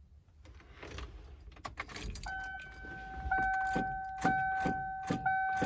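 Keys jangling as they go into the ignition of a Ford OBS truck, then the cab's warning chime ringing in steady tones that restart about once a second.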